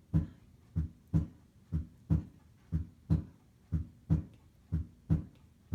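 Simulated heart sounds from a SAMII auscultation trainer: a slow, regular lub-dub, about one pair of thumps a second. This is the bradycardia sound, counted at about 64 beats a minute.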